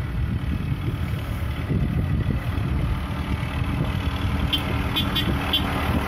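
Case backhoe loader's diesel engine running steadily, a continuous low rumble. From about four and a half seconds in, a few short high-pitched chirps sound over it.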